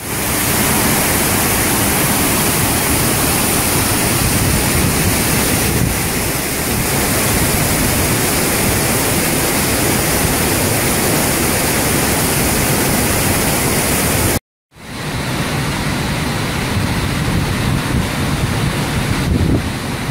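Marmore Falls, the Velino river dropping about 165 m in tiers, giving a loud, steady rush of falling water. The sound cuts out for a moment about three-quarters of the way through and comes back a little quieter.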